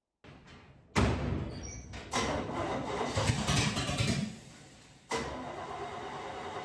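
1963 Chevy C10's small-block Chevy V8 starting up about a second in and running unevenly, then settling into a steady idle from about five seconds in.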